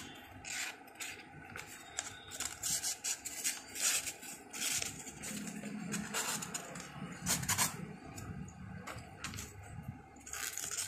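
A folding knife blade slicing through a sheet of rough copy paper: uneven scratchy cuts and paper rustling, a sign of a sharp edge.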